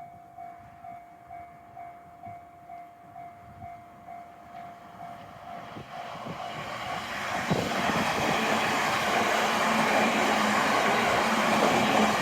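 Japanese level-crossing warning bell ringing about twice a second, then a train approaching and running over the crossing, its rumble swelling from about six seconds in and growing loud enough to drown out the bell.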